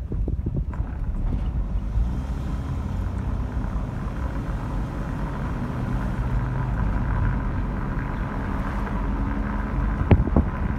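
A moving car, heard from inside: a steady low rumble of road and engine noise with a faint hum. Near the end, wind starts buffeting the microphone in sharp gusts.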